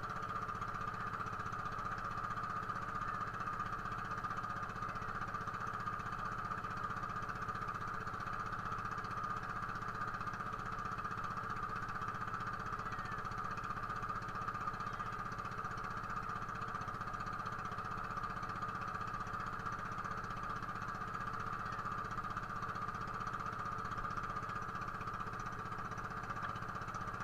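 A small boat's engine running at a steady speed, a constant drone that does not change.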